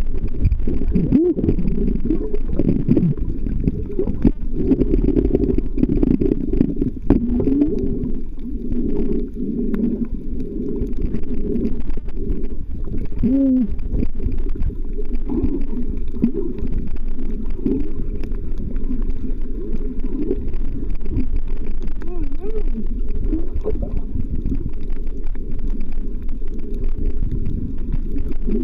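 Muffled underwater rumble and gurgling of moving water, picked up by a camera submerged on a reef, with scattered faint clicks.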